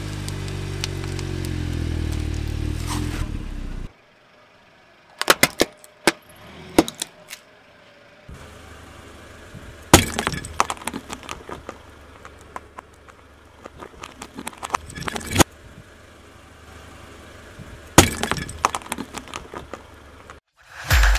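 A car engine runs steadily as a tyre presses onto a polystyrene foam ball. After a cut come scattered crackles of the foam giving way, then several sharp cracks as a brittle orange clay piece shatters under the rolling tyre, the loudest about ten seconds in and two more near 15 and 18 seconds.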